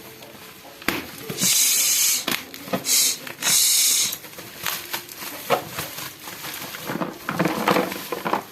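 Packaging being torn open: three loud ripping sounds in quick succession about a second in, followed by rustling and handling clicks.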